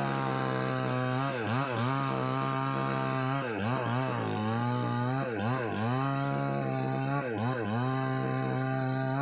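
A two-stroke chainsaw with a 20-inch bar running at high speed. Its pitch dips briefly and recovers again and again, about a dozen times.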